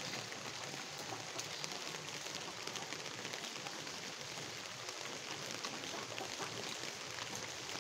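Steady light rain falling on a puddle and wet ground, a constant patter with faint scattered drop ticks.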